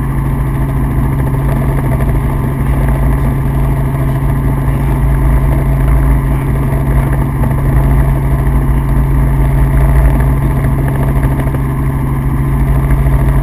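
Helicopter in flight: a steady, loud drone of engine and rotor with a strong low hum.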